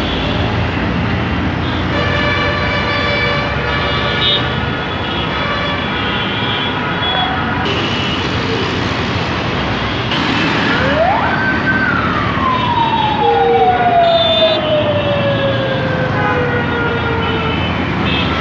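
Dense city traffic with a steady road rumble and repeated vehicle horns. About halfway through, a siren rises quickly, holds briefly, then slowly falls away over several seconds.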